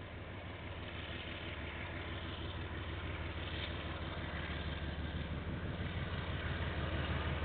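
Diesel locomotive engine running with a steady low drone, growing gradually louder.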